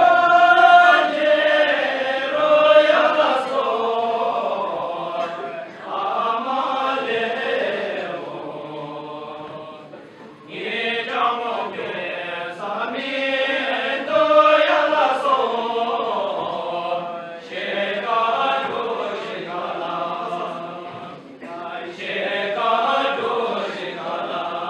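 Group of Bhutanese dancers singing a folk dance song together in unison, in long phrases with short breaks between them.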